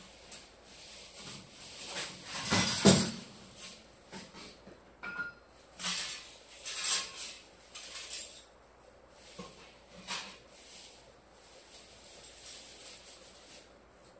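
Small wood-and-charcoal fire crackling under a lidded donabe clay pot: irregular sharp pops and clinks, the loudest about three seconds in and a cluster a few seconds later.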